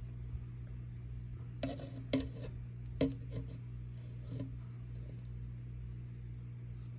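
A few light clicks and taps of metal feeding tongs offering a live mealworm, bunched about two seconds in with a few more around three and four seconds, over a steady low hum.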